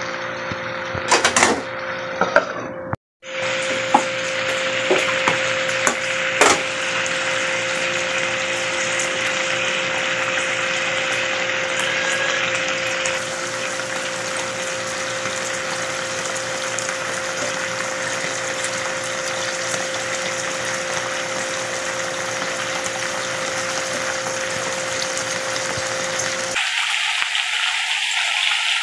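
Pork steaks sizzling and bubbling in soy sauce and oil in a pan. A few sharp knocks and clicks sound in the first several seconds as onion slices are dropped in, under a steady hum that stops near the end.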